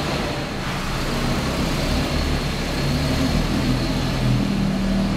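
A 4x4 truck's engine running as the vehicle moves at low speed, steady in level, with its pitch shifting slightly.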